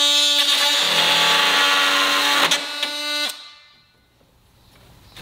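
DeWalt cordless oscillating multi-tool cutting through a plastic air-conditioner window-vent panel: a steady high buzz that stops a little over three seconds in and winds down.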